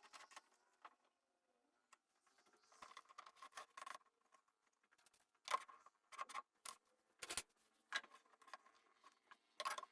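Light, scattered clicks and knocks of pieces being handled in a woodworking shop, about a dozen short separate taps, most of them in the second half.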